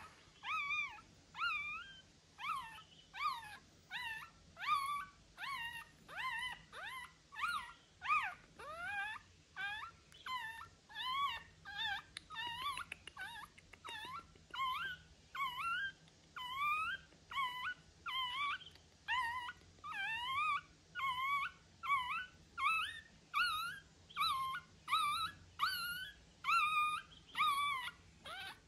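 A young puppy crying without a break, a steady string of short, high whimpering cries that bend up and down in pitch, about two a second.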